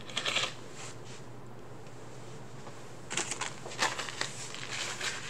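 Short rustling, handling noises: one burst about half a second in and several more between three and five seconds in, over a steady low hum.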